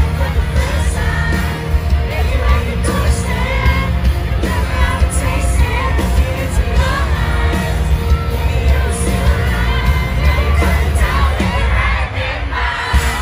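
A live pop-rock band playing in a large venue, heard from the audience: drums and bass with a singer at the microphone and the crowd singing and shouting along.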